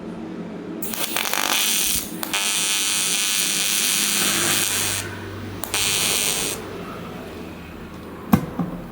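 AC TIG welding arc buzzing on aluminum, struck in three bursts: a short one, a longer one of nearly three seconds, then a brief one. A sharp click comes near the end.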